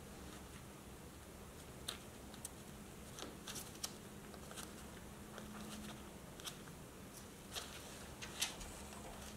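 Scattered small clicks and rubbing as nitrile-gloved hands fit a white sidewall ring and a chrome hubcap onto a toy truck's rubber wheel. The clicks are irregular and faint, with a few sharper ones.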